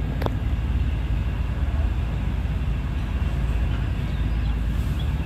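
A houseboat's engine running steadily as the boat moves, a constant low drone. A single short click comes just after the start.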